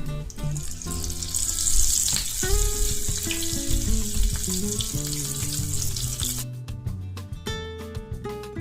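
Small prawns frying in hot oil, a dense sizzle that cuts off sharply about six seconds in. Background music with plucked-string notes plays underneath and carries on after.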